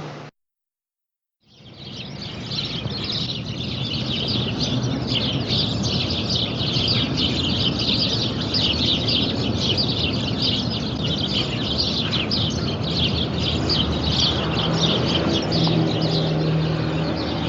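A dense chorus of many birds chirping rapidly, over a steady low rumble. The sound drops out for about a second near the start, then fades back in.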